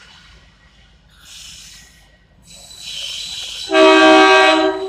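Approaching diesel locomotive sounding its horn in one loud blast of about a second, several tones together, near the end. Before it, the rush of the oncoming train grows louder.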